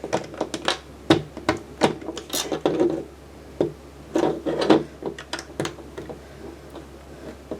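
Plastic Lego bricks clicking and clattering as pieces are picked up and pressed into place, in a run of irregular sharp clicks with a few short rustling stretches.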